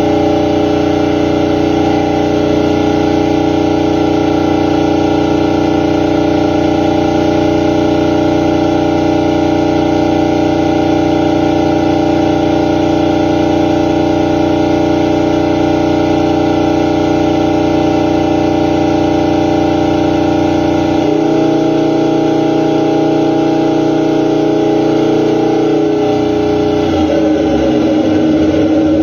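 Overhauled reciprocating compressor running steadily on its test run, a loud, even hum with a fixed pitch. About two-thirds of the way in the tone changes, losing its lowest part. Near the end it turns uneven.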